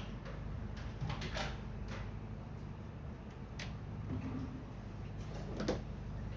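A few light clicks and knocks, as of parts being handled, over a steady low hum.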